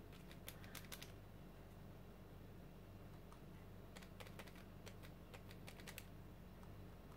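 Faint quick light taps of a small sponge dabbing acrylic paint through a plastic stencil onto a paper page, in two short clusters: in the first second and again from about four to six seconds in. A faint low hum runs underneath.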